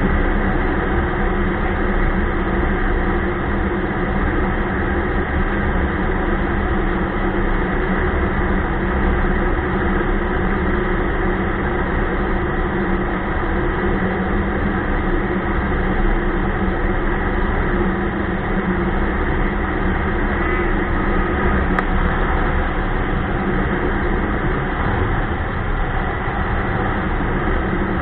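Ski-Doo Expedition LE snowmobile running steadily while under way.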